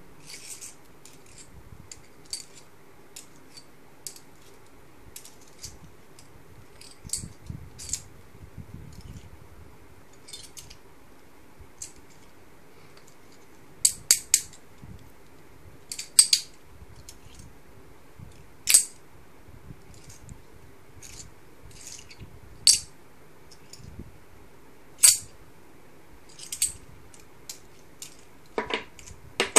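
Silver Morgan dollar coins clinking against one another in the hands: scattered sharp metallic clicks, the loudest coming singly every two to three seconds in the second half, with a quick cluster near the end.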